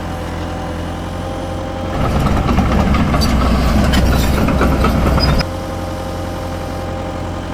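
Simulated diesel engine sound from a Huina RC excavator's sound unit, idling steadily. It steps up louder for about three and a half seconds in the middle, then drops back to idle.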